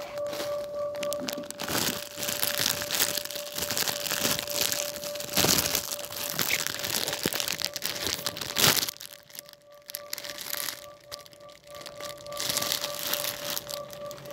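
Plastic packaging crinkling and crackling as cellophane-wrapped gift items are handled and brushed, busiest in the first half and ending with a sharp crackle, then quieter. A steady hum runs underneath and drops out for a few seconds in the middle.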